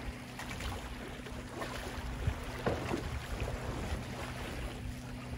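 Steady wind and outdoor noise over a low hum, with a few light knocks from footsteps on the wooden dock planks about halfway through.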